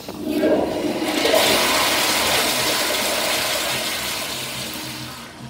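Toilet flushing: a loud rush of water that builds quickly, stays strong for a couple of seconds, then fades as the bowl refills.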